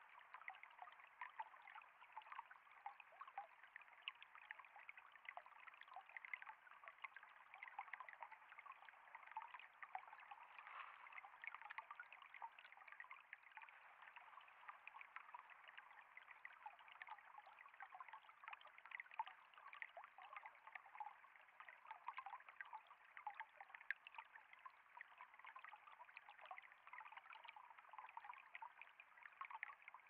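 Shallow stream trickling and splashing over rocks: a faint, steady babble of running water, with many small splashes.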